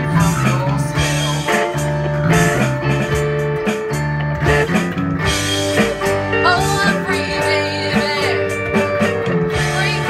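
A band playing blues-rock music, electric guitar over a moving bass line.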